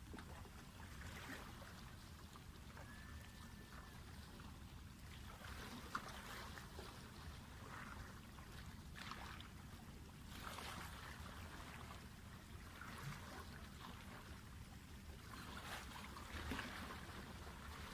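Small waves lapping softly and irregularly at a canal bank over a steady low rumble, with a single sharp click about six seconds in.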